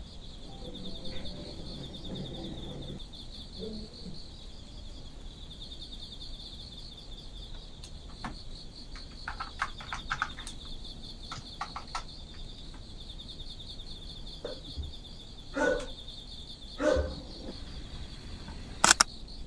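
Insects trilling steadily, a fast, even pulsing chirp that never stops, with scattered small clicks, two short knocks about three-quarters of the way through and a sharp click just before the end.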